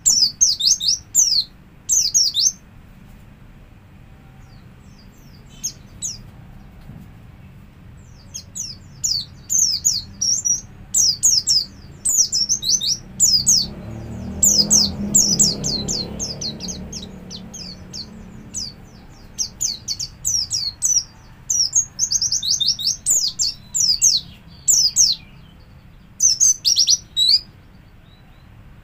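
White-eye (pleci) singing in rapid bursts of high, quickly falling chirps, with short pauses between the runs. This is the fast, continuous 'ngalas' song style.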